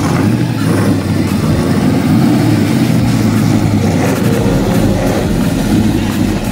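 A car engine running steadily nearby with a low rumble.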